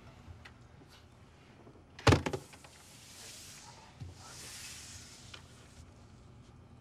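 A quiet room broken about two seconds in by a short, sharp knock, with a fainter knock about two seconds later and soft rustling in between.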